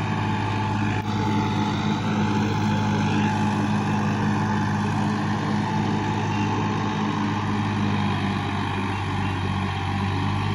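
Sonalika DI-50 RX tractor's diesel engine running steadily as it drives through a flooded paddy field, with water churning and splashing around its wheels and rear implement.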